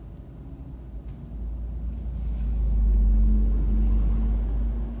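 Low engine rumble of a city bus pulling up alongside, growing louder over the first three seconds with a steady hum on top, then easing slightly near the end, heard from inside a stopped car.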